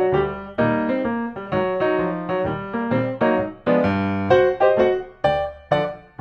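Background piano music, a lively tune of many short, quickly repeated notes over a steady beat.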